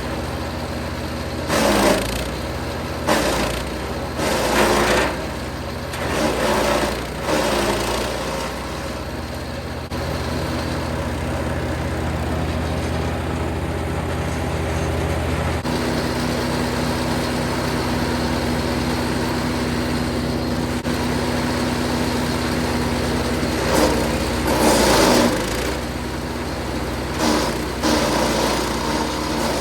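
Jansen 1500e GTS wood chipper running steadily, with short bursts of chipping noise as branches go through: several in the first eight seconds and a couple more near the end. The steady machine note shifts once about halfway through.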